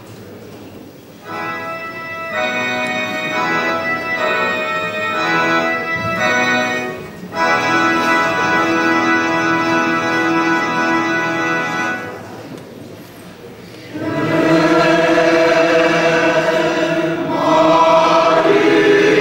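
Yamaha Clavinova digital piano playing held, organ-like chords as an introduction, changing about once a second at first and then sustaining one long chord. After a short pause, a mixed choir of men and women comes in singing about 14 seconds in.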